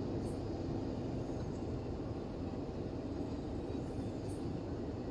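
Steady low rumble of passenger train coaches rolling along the track, with faint high ticks about once a second.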